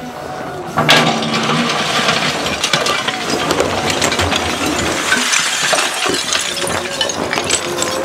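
Steel bucket of a MultiOne mini loader driving into a pile of broken terracotta roof tiles and bricks: a sharp crash about a second in, then continuous clattering and clinking of tile fragments as the bucket scoops and lifts, with the loader's engine running underneath.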